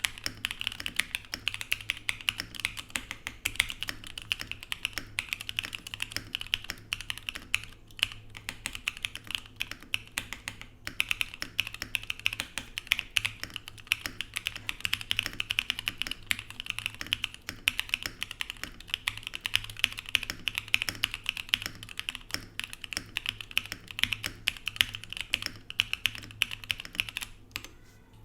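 Fast continuous typing on a Mode Sonnet mechanical keyboard with lubed Durock POM switches, aluminium plate, plate foam and PBT Cherry-profile keycaps: a dense run of keystroke clacks, briefly pausing twice.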